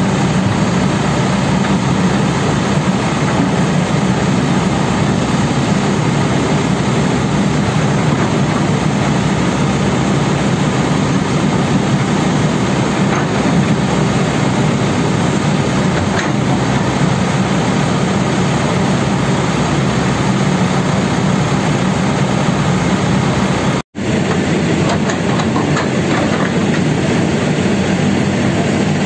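Kobelco SK200 hydraulic excavator's diesel engine running at working revs as the machine digs mud, a loud steady drone. The sound drops out for an instant about 24 seconds in.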